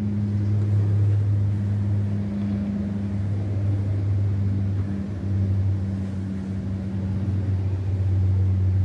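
Steady low hum of an idling vehicle engine, even throughout.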